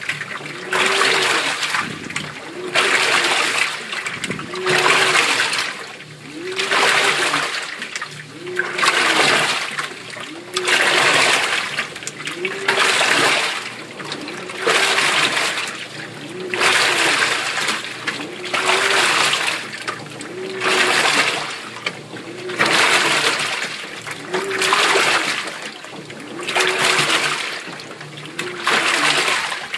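Waveforce 14 kg top-loading washing machine agitating a load of jeans in water. The water swishes in regular surges about every two seconds, each with a motor whine that rises and falls as the drive speeds up and slows.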